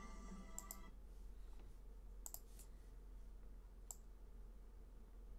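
Three faint computer mouse clicks, spaced about a second and a half apart, over near-silent room tone.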